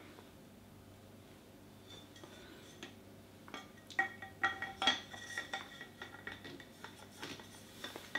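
Metal parts of a 3D printer's cantilever arm assembly clinking and knocking as it is lifted and handled by hand. It is quiet at first, then a quick, irregular run of sharp clinks with short ringing comes from about halfway in.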